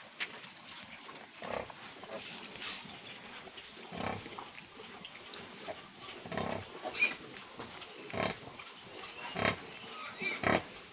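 Nursing sow grunting in short, repeated grunts about every second or so as her newborn piglets suckle, with a couple of brief high squeaks among them.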